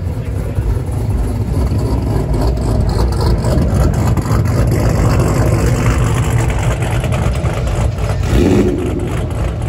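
Car engine running and revving, with a steady low rumble throughout.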